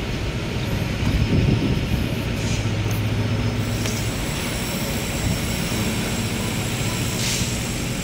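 A motor vehicle's engine running steadily, a low hum that swells briefly about a second in.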